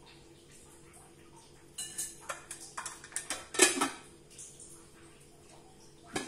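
Metal kitchenware being handled: a run of clinks and scrapes from an aluminium pot, its lid and a metal bowl and utensil from about two seconds in, the loudest a ringing clang near the middle, then a single knock near the end.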